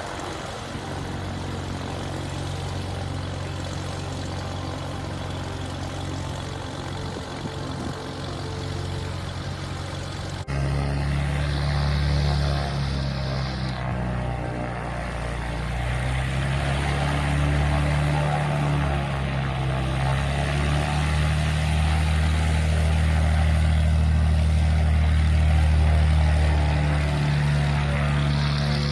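Cessna 182T's six-cylinder piston engine and propeller running steadily at low power. About ten seconds in the sound cuts to a louder, fuller engine note as the plane taxis.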